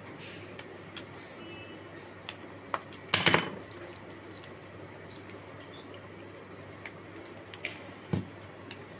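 Plastic casing of an old mobile phone wall charger being pried and pressed open with a screwdriver: scattered small plastic clicks, a louder crack about three seconds in, and a dull knock near the end.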